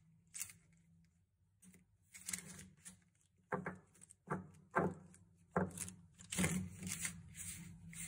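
A handful of plastic felt-tip sketch pens handled on paper: they are bunched up in the hand and fanned out again, giving a run of light plastic clicks and rustling from about two seconds in.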